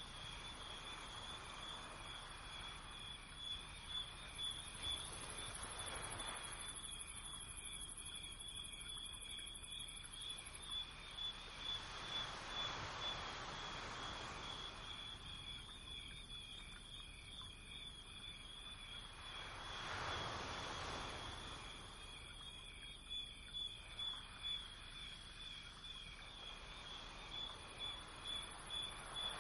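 A steady high-pitched pulsing trill, like an insect's, runs throughout over low background noise. Slow swells of hiss come and go a few times.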